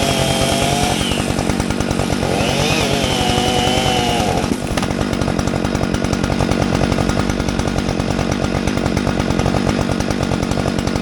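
Two-stroke gas chainsaw running at high revs, steady and loud, with a brief dip about four and a half seconds in.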